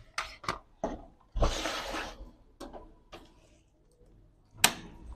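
Plastic laptop casing being handled and pried apart: a series of sharp clicks and snaps from the case clips, with a scraping rub lasting under a second about a second and a half in and the loudest snap near the end.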